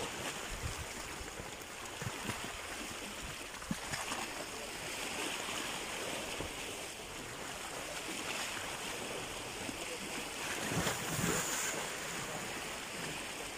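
Fast, churning river water rushing along an eroding earth bank, with a few dull thuds and splashes of bank soil collapsing into the flow, and a louder surge about eleven seconds in.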